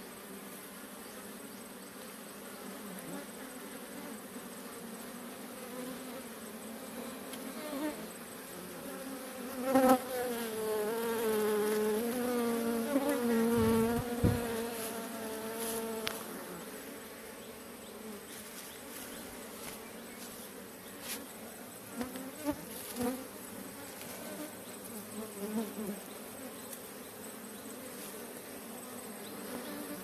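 Honeybee swarm buzzing steadily around the cluster. The buzz swells louder for about six seconds from about ten seconds in, and a few light clicks come in the second half.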